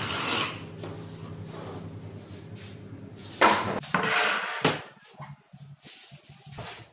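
Utility knife scraping along an HPL laminate sheet as it is scored, then louder scraping and light knocks about three and a half seconds in as the laminate and plywood sheets are handled.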